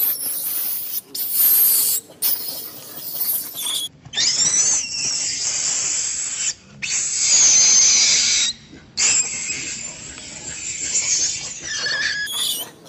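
Macaque monkeys screaming and squealing, shrill and loud, in several stretches broken by short gaps.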